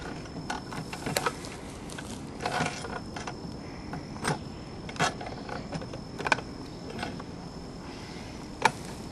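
Light metallic clinks and taps, scattered every second or so, of bolt-and-nut hardware being handled and fitted through holes in a bird-house mounting pole. The sharpest click comes near the end, over a faint steady high whine.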